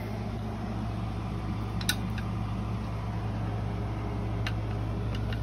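Window air conditioner running with a steady hum, and a couple of light clicks about two seconds in and again near the middle.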